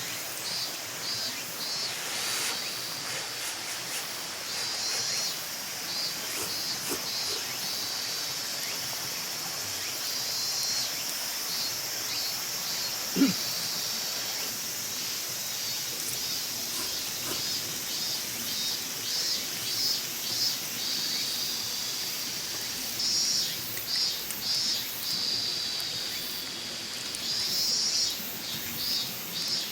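Outdoor ambience: runs of short, high-pitched chirps repeat over a steady hiss, with a single sharp click about halfway through.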